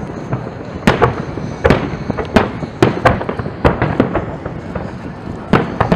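Aerial fireworks shells bursting in a run of sharp bangs, roughly one or two a second, with smaller pops between them.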